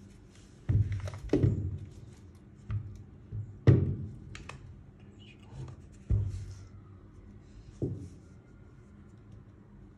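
Makita DHR243 cordless rotary hammer being set down and turned over on a workbench: about six dull thumps of its plastic housing against the surface, with light scraping and handling noise between them. The loudest thump comes almost four seconds in.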